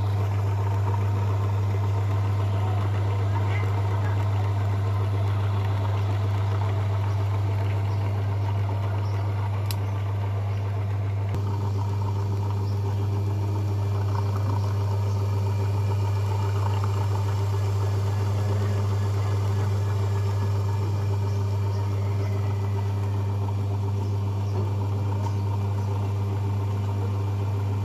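Electric motor running steadily, a strong unchanging low hum with fainter overtones, cutting off abruptly at the end.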